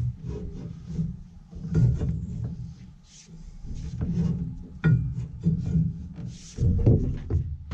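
Wind buffeting the microphone in uneven gusts, with irregular knocks and scrapes from parts and tools being handled on the combine; one knock about five seconds in rings briefly like metal.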